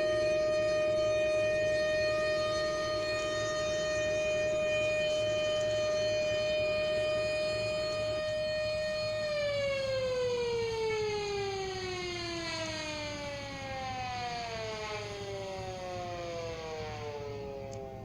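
Outdoor civil-defense warning sirens (Thunderbeam and SD-10) holding a steady wail for about nine seconds, a second lower tone fading out shortly before. The main tone then winds down, its pitch falling steadily and the sound growing quieter as the siren shuts off.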